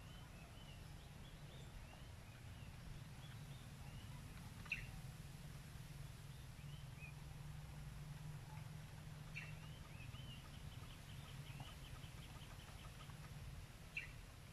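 Birds calling faintly: three sharp single chirps about five seconds apart, and a quick run of repeated high notes about two-thirds of the way through, over a faint low steady hum.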